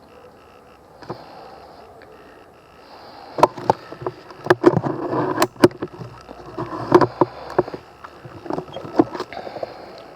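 Irregular sharp clicks and knocks, densest in the middle, over rustling noise, with a faint steady high whine underneath.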